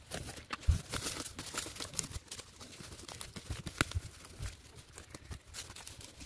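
Weeds being pulled up by hand from soil: rustling and crackling of leaves and stems as roots tear loose, with a few soft thumps.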